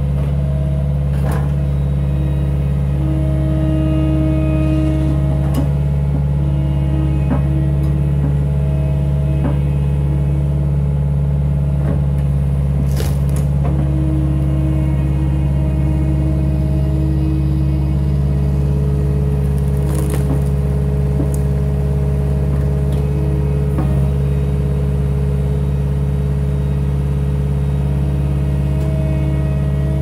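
Cat 262D skid steer's diesel engine running steadily, with a whine that comes and goes for a second or few at a time as the hydraulics work the inverted log splitter, and a few sharp knocks.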